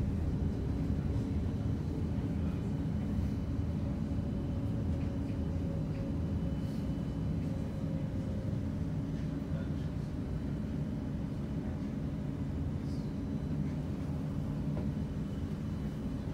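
A CAF Urbos tram running along its track, heard from inside the driver's cab: a steady low rumble of motors and wheels on rail, with a faint steady whine that fades out about halfway through.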